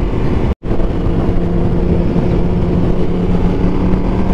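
Yamaha YZF-R1 inline-four running steadily at cruising speed, its steady engine note under heavy wind rush on the helmet microphone. The sound cuts out completely for a split second just over half a second in.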